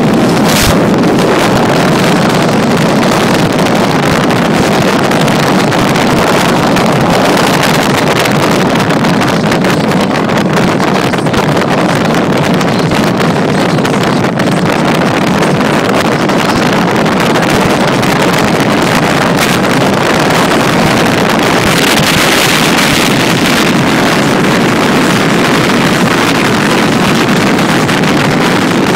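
Loud, steady wind rushing over the microphone of a phone carried outside a car driving along a road, with a stronger gust about three-quarters of the way through.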